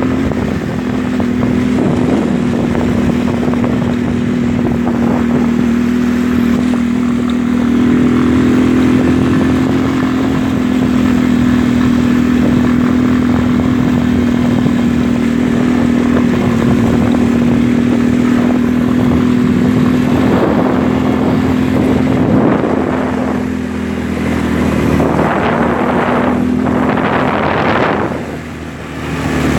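ATV engine running at a steady speed under way. Bursts of rushing noise come in during the last several seconds, and the engine sound drops off briefly near the end.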